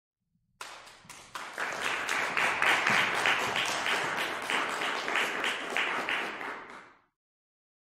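Audience applauding: starting about half a second in, building, then dying away by about seven seconds.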